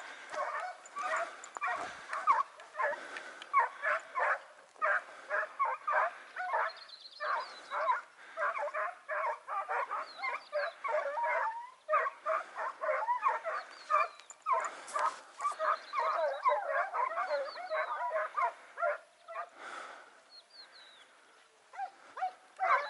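A pack of hare hounds in full cry on the trail of a hare: many overlapping barks and yelps in quick, unbroken succession. The cry thins out for a couple of seconds near the end.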